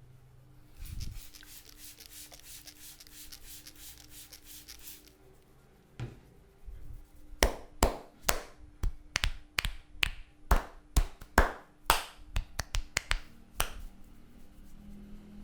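Head massage by hand: a dense fine crackling of hair rubbed between fingers for a few seconds, then a run of sharp hand taps on the head, about three a second.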